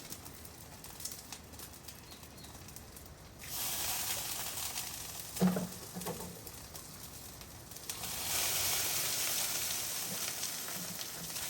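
Fire burning in a lighter-fluid-soaked coffee maker: a hissing, sizzling flame that gets louder about a third of the way in and louder again about two-thirds in, with one sharp crack about halfway.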